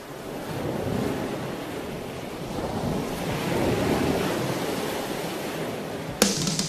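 Water churning and rushing in a moving boat's wake, with wind buffeting the microphone. Near the end a drum-led music track cuts in suddenly.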